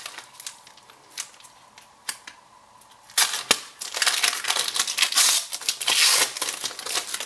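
Collectible yoyo player cards being handled and shuffled by hand: a few light clicks in the first three seconds, then rustling and scraping of card from about three seconds in.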